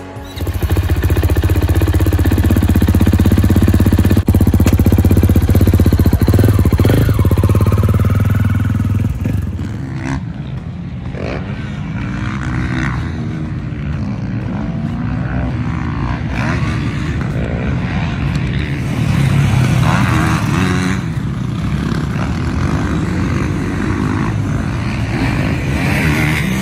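Dirt bike engines. For the first nine seconds or so one runs loud and steady close by. After that, motocross bikes rev up and down as they ride the track, their pitch rising and falling again and again.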